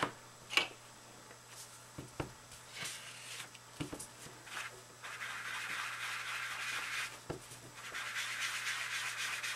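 A few small clicks and taps, then an ink sponge rubbing against paper in two spells of steady scratchy rubbing, about halfway through and again near the end.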